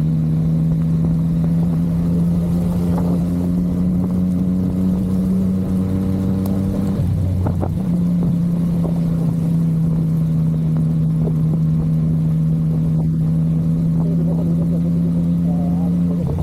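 Yamaha MT-09's three-cylinder engine running at steady revs while riding, with a brief break in its note about seven seconds in and again near the end.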